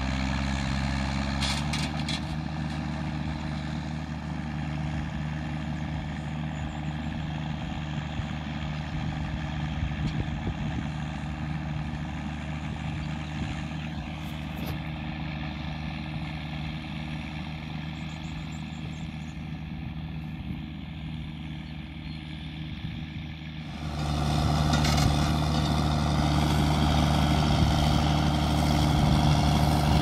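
Ford TW25 tractor's straight-piped six-cylinder turbo diesel running steadily under load, pulling a four-furrow plough through the field. It gets clearly louder about 24 seconds in.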